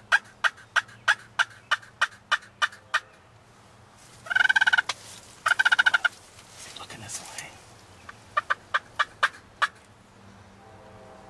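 Wild turkey calling: a run of about a dozen short, sharp yelps at roughly three a second, then two gobbles about a second apart, then another short run of yelps.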